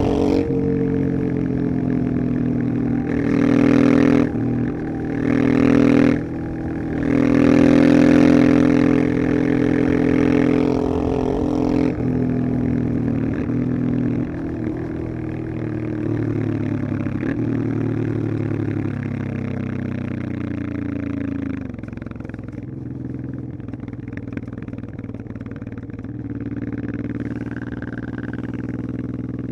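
1989 Honda Transalp XL600V's V-twin engine running, with several louder surges of higher revs in the first ten seconds or so, then settling to lower, steadier running that eases off further near the end.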